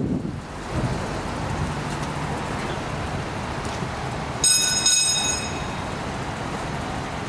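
Steady outdoor vehicle and traffic noise. About four and a half seconds in comes a brief high electronic tone, sounding twice in quick succession.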